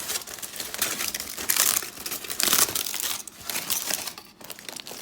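Aluminium foil packet being unwrapped: foil crinkling and crumpling in uneven bursts, loudest about one and a half and two and a half seconds in.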